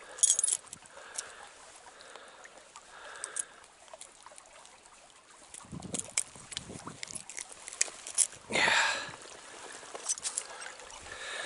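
Small stream trickling, with scattered light clicks and knocks close to the microphone and a brief louder burst of noise about nine seconds in.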